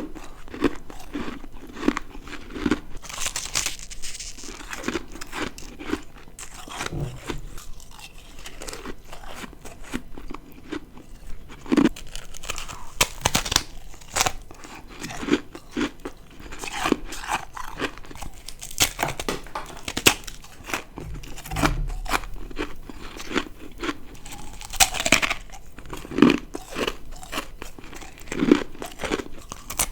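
Close-up crunching and chewing of ice: a rapid, irregular run of sharp cracks and crunches as bites of brittle ice are broken up and chewed, with softer low chewing thuds between them.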